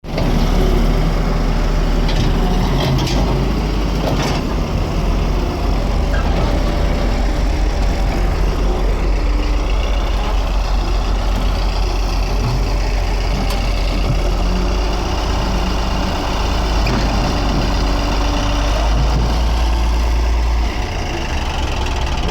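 Heavy diesel engines of earthmoving machinery running steadily with a deep rumble, with a couple of sharp metallic knocks a few seconds in.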